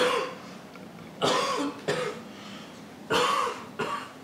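A man coughing through a face mask, about five coughs in three short fits. The coughing is acted, to play a sick person.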